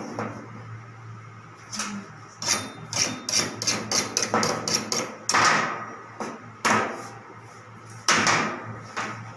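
Quick run of light knocks and clicks against a stainless steel worktable and an aluminium fluted tart tin as pastry is pressed into the tin and trimmed, about three or four a second. Then come three longer scrapes as dough scraps are swept across the steel.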